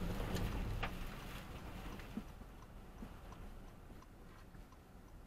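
Car cabin noise of a car slowing in snow: a rushing rumble of tyres and wind, loudest at first, fades as the speed drops. From about two and a half seconds in, a faint regular ticking joins it.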